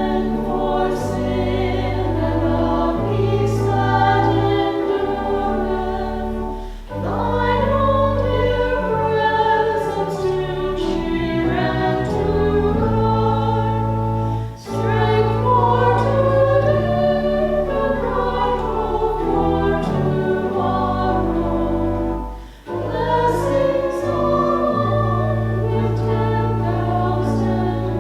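A hymn sung by voices with instrumental accompaniment, in long held phrases broken by brief pauses about every seven to eight seconds.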